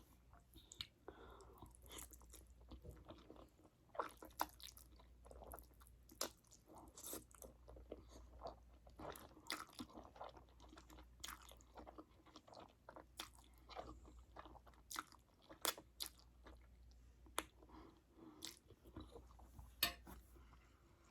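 Close-miked chewing of black bean ramen noodles: a quiet stream of short, sharp wet mouth clicks and smacks.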